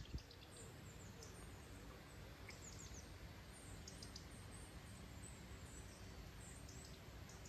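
Faint outdoor ambience by a lake: small birds chirping in short, high calls scattered through, over a low steady background rumble.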